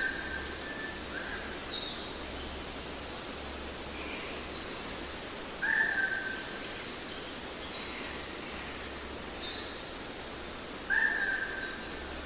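Birds calling over a steady background hiss: one bird repeats a short, level call three times, about five seconds apart, and higher falling chirps come twice in between.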